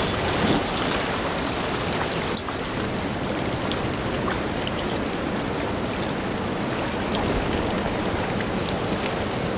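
Surf washing against a rocky shoreline: a steady rush of water. Light rapid ticking sits on top of it for the first two seconds or so.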